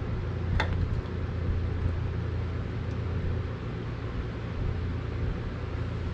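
Steady low hum of an electric fan running, with one sharp click about half a second in as the used oil filter is twisted off the lawn mower engine by hand.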